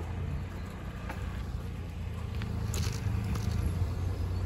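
Steady low rumble of a bicycle rolling over paving, with a few light clicks and rattles.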